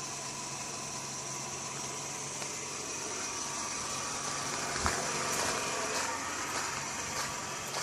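Engine of a piece of road-construction machinery running steadily at a concrete road pour, with a single sharp knock about five seconds in.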